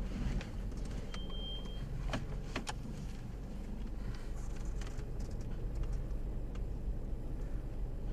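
Steady low engine hum heard inside a Mini's cabin, with a few sharp clicks from the automatic gear selector being handled and one short high beep about a second in.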